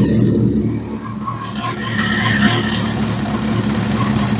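2003 Suzuki Hayabusa's inline-four engine idling steadily on its stand, running on a newly installed replacement fuel pump.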